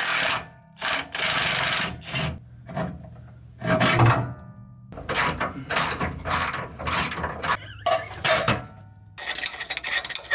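DeWalt cordless impact wrench run in short bursts, hammering loose the factory rear track bar bolt, followed by metal clattering and scraping as the bolt is worked out.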